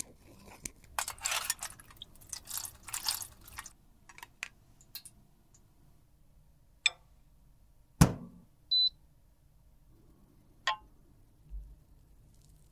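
A fine tool or brush scraping and brushing over a small clear plastic lipstick part for a few seconds, in short scratchy strokes. Then come scattered small clicks, a loud knock about eight seconds in, a short electronic beep right after it, and another click.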